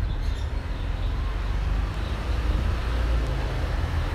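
Steady low rumble of background noise with an even hiss above it and a few faint clicks.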